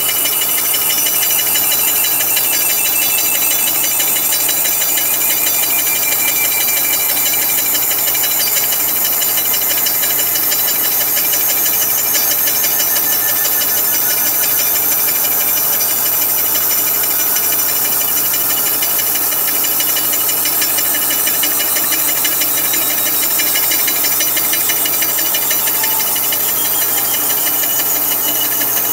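Kearney & Trecker horizontal milling machine running a slitting saw blade through an aluminum water neck: the steady, continuous noise of the spindle drive and the blade cutting.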